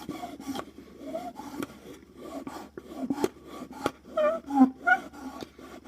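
Straw being worked to make noise: irregular rasping, rubbing scrapes and sharp clicks, with two short pitched squeals near the end.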